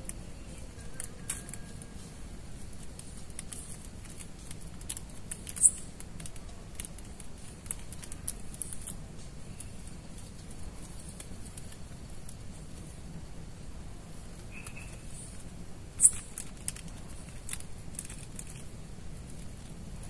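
Scattered light clicks and taps of camp gear being handled, with two sharper clicks about six and sixteen seconds in, over a low steady rumble.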